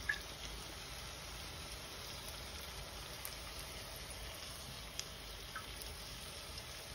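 Browned meatballs sizzling faintly in hot fat in a roasting tray, a steady hiss with a few small pops.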